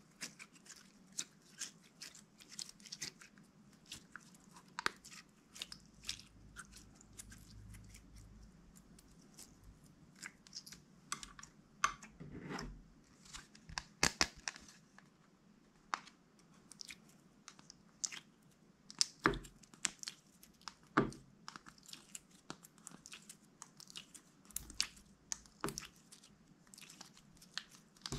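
Clear slime being stretched and squeezed by hand, giving irregular small crackles and pops. Later, slime cubes are handled in a plastic ice-cube tray, with a few louder sharp clicks.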